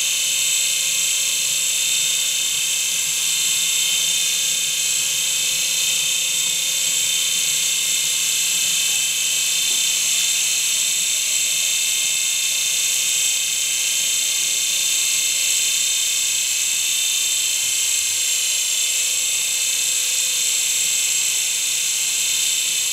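Skywriter UFO, a small coaxial toy helicopter, hovering: its electric motors and twin contra-rotating rotors make a steady high-pitched whine.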